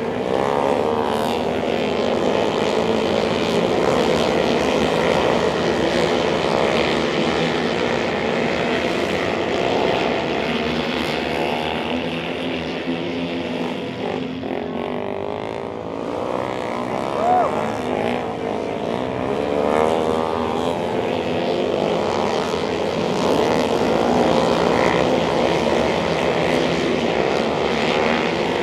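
A pack of single-cylinder flat-track race motorcycles running laps, their engines overlapping in a continuous loud drone that keeps rising and falling as the riders rev on and off the throttle through the turns.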